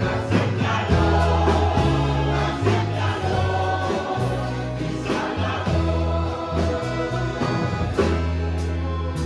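A live church band playing and singing a hymn: voices in chorus over mandolins, acoustic guitar, electric bass, keyboard and accordion, with deep bass notes and a steady beat.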